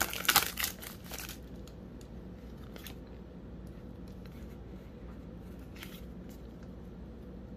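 Foil wrapper of a Pokémon Champion's Path booster pack crinkling as the cards are pulled out of it, for about the first second and a half. After that, only a few faint clicks of the card stack being handled.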